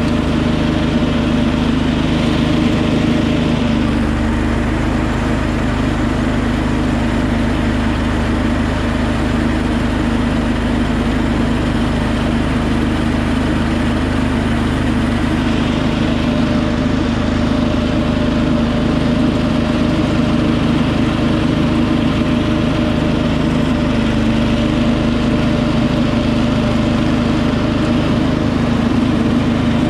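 Wheel Horse 310-8 garden tractor's engine running steadily while it drives a front-mounted snowthrower through heavy, wet snow.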